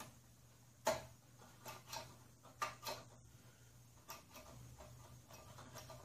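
Light scattered clicks and knocks of hands handling parts on a lawn mower's small engine. The loudest click comes about a second in, with a faint steady low hum underneath.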